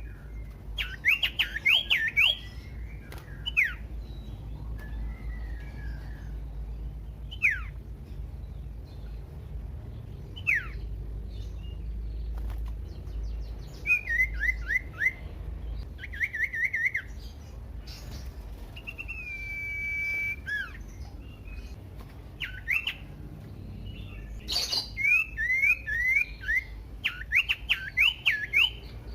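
Common iora singing: groups of quick, sharp whistled notes that drop in pitch, with pauses between. A long held whistle comes about two-thirds of the way through, and a rapid run of notes near the end.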